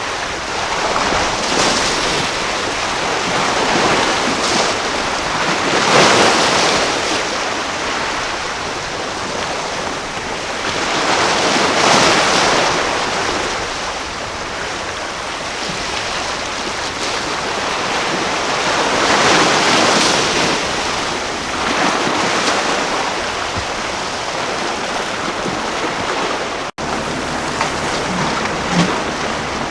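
Ocean waves breaking and rushing, the surge swelling and fading about every six to eight seconds.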